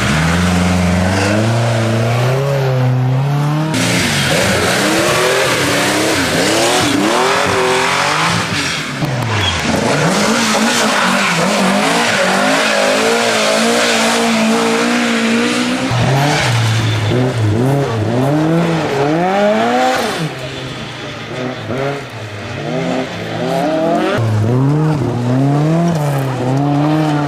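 Historic rally cars passing one after another at full throttle, their engine notes climbing hard and dropping back again and again as the drivers rev, shift gear and lift, over a steady hiss.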